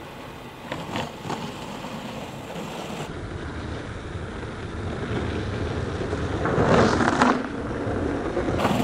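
Longboard wheels rolling on asphalt, the rumble growing louder as the board approaches. About seven seconds in there is a louder hiss as the board is turned sideways into a heelside stand-up slide.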